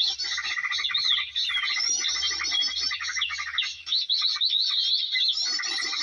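Many small birds chattering and twittering in a dense, continuous chorus of quick chirps and trills, the noisy small-bird sound used to lure birds down to lime sticks. It drops off briefly about a second in and again near four seconds.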